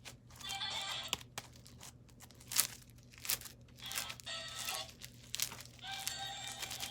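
Slime packed with styrofoam balls being squeezed and worked by hand: irregular crackling and sticky popping. Music starts near the end.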